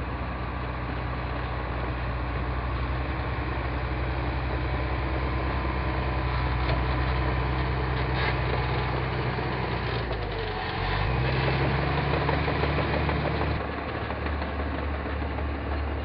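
Excavator's diesel engine running steadily while the bucket digs soil. About two-thirds through it rises in pitch and gets louder for a few seconds, then drops to a lower, pulsing note.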